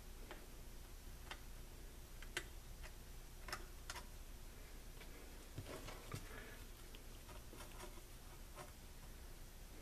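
Faint, irregular light metallic clicks and taps of a soldering iron tip pressed and worked against a terminal-strip solder lug, over a low steady hum. The iron is switched off and cold, so no solder melts or sizzles.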